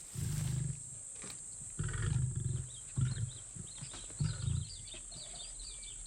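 A lion calling: four deep, low calls about a second apart, the first two longer than the last two. Faint bird chirps come in over the second half.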